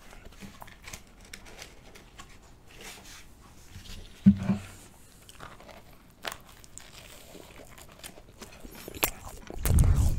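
Close-miked eating of Turkish Ramazan bread spread with ajvar: the bread is torn, then bitten and chewed, with many small crackles and crunches. A short low thump comes about four seconds in, and a louder low rumble near the end.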